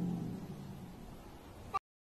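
A cat's low, drawn-out growl fading away. A brief click follows, then the sound cuts off abruptly to silence near the end.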